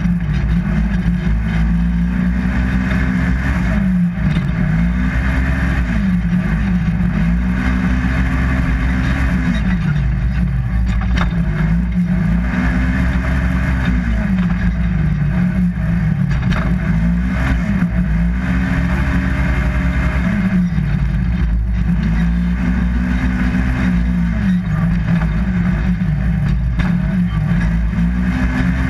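Polaris RZR 1000 XP side-by-side's twin-cylinder engine under hard racing, revving up, holding and backing off over and over, about every two to three seconds, over a steady low rumble.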